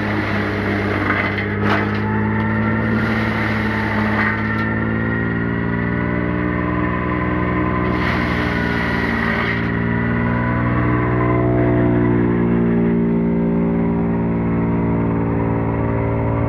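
Tractor-driven PTO wood chipper running loud and steady, with two spells of branches being chipped: through the first four seconds or so, with a sharp crack near the start, and again around eight to nine and a half seconds in.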